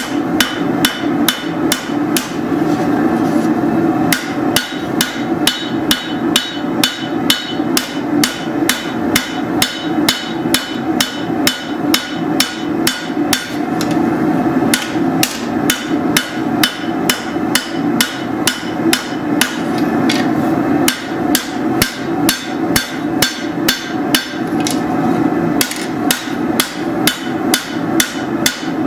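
Hammer blows on steel over an anvil while a machete blade is hand-forged, about two to three strikes a second with a few short pauses. A steady low hum runs underneath.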